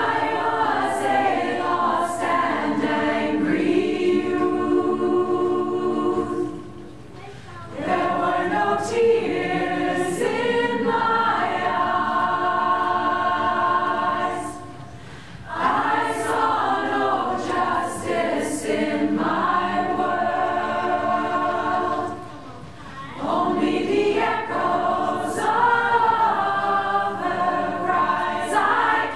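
Women's choir singing a cappella in four phrases of about seven seconds each, with a brief pause for breath between phrases.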